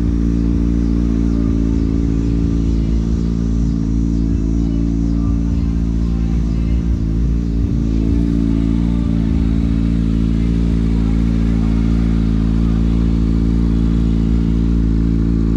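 Motorcycle engine running steadily, holding one constant pitch.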